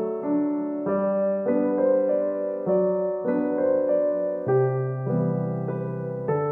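Background piano music, a run of notes and chords that change about every half second.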